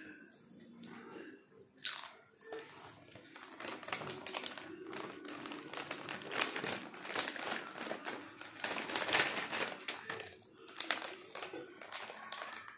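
Lay's potato chips crunching as two children bite and chew them, a dense run of crisp crackles that dips briefly about ten seconds in.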